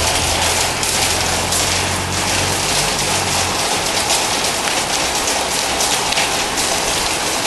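Steady hiss of rain on the metal roof of an indoor arena, with a low hum underneath that stops about three and a half seconds in.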